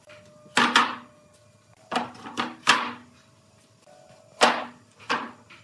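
Pine board panels being handled and set down on a wooden workbench: about seven sharp wooden knocks in three quick clusters, each with a short hollow ring.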